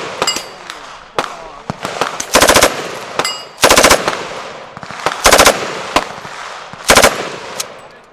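Automatic gunfire in four short bursts of rapid shots, with single shots cracking in between.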